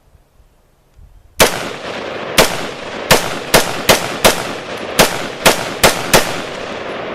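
AR-15 rifle firing ten shots at an uneven pace over about five seconds, starting about a second and a half in, each sharp crack followed by echo that hangs between shots.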